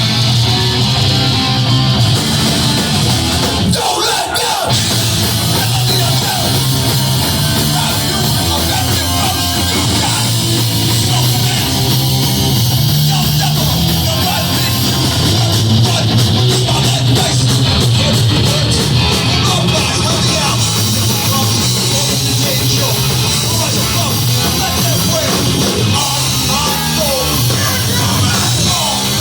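Hardcore band playing live: loud, dense rock music with yelled vocals, continuous apart from a brief drop about four seconds in.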